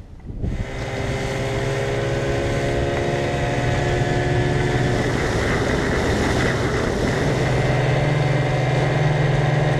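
Outboard motor on a small aluminum fishing boat running steadily under way, a constant drone over a hiss of wind and water. It starts about half a second in.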